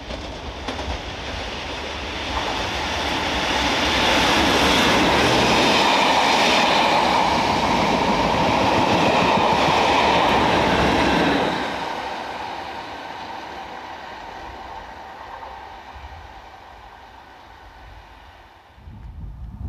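Class 37 diesel locomotive 37175, with its English Electric engine, passing with a train: engine and wheels on the rails grow louder as it approaches, are loudest for about seven seconds as it goes by, then fade steadily as it moves away.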